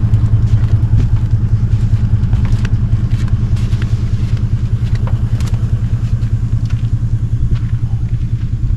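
Portable air compressor running steadily with a fast, even pulsing hum, inflating a caravan tyre punctured by a screw. A few light clicks sound about halfway through.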